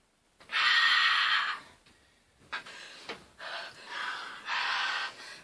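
Hard, hissing breaths and gasps through open mouths, the reaction to a burning mouth just after swallowing spoonfuls of hot sauce: one long loud breath out about half a second in, then three shorter ones.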